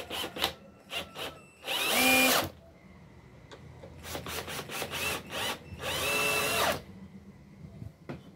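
Cordless drill-driver working into a wooden board. It comes in short pulses of the trigger, then a longer run of the motor of about a second, and this happens twice.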